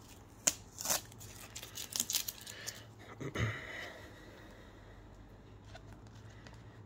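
Sticky tape being peeled off a hard plastic top loader card holder: a run of crackling tears and sharp clicks of the plastic being handled in the first three and a half seconds, then quieter handling with a few faint ticks.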